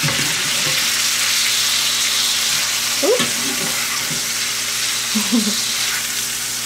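Two rock bass sizzling steadily in a cast-iron skillet with a splash of hard cider, while a metal spatula scrapes under them to turn them.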